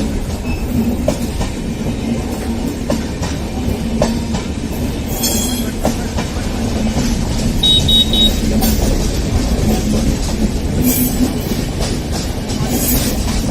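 Swatantrata Senani Superfast Express passenger train running over the track: a steady rumble of wheels on rails with scattered clicks from rail joints and several brief high-pitched squeals from the wheels.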